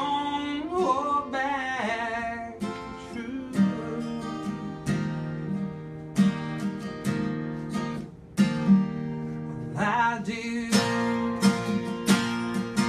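A singer accompanied by a strummed acoustic guitar. The voice sings a phrase at the start, falls away for several seconds while the guitar keeps strumming, and comes back briefly about ten seconds in.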